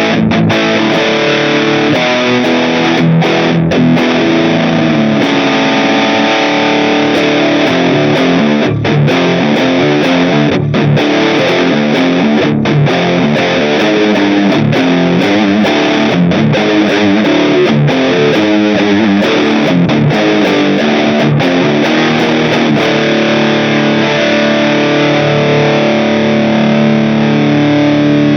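Smiger LG2 Pro electric guitar played through distortion and effects: a steady flow of picked notes and chords.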